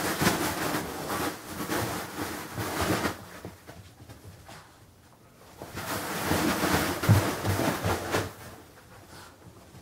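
A bean bag bed rustling and shifting as a Boston terrier pounces on it and wrestles with it, its cover and filling swishing in two bouts: one in the first three seconds, another from about six to eight seconds in, with a few soft thumps.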